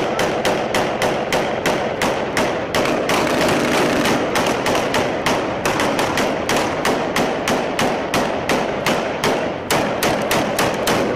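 Rapid, sustained rifle gunfire, about four shots a second.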